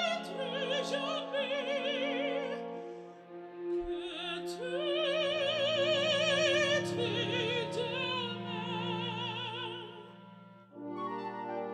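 Operatic singing over orchestral accompaniment: a voice holds long notes with a wide vibrato above sustained string-like chords, dipping briefly near the end before swelling again.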